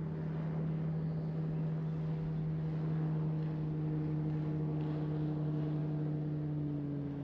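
Motorboat engine running at speed as the boat passes over the water: a steady low drone, with a second, higher tone joining a few seconds in.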